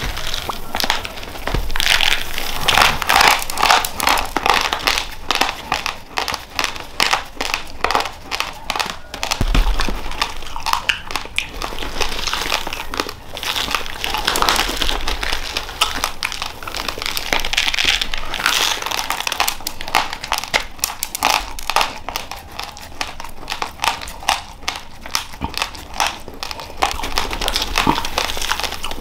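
A hand digging and stirring through raw rice grains inside a plastic rice bag: the grains shift and trickle and the plastic crinkles, a dense run of small crackles with louder spells.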